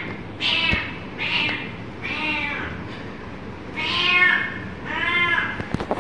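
Young cat meowing repeatedly, about five meows of roughly half a second each, with a couple of sharp knocks in between.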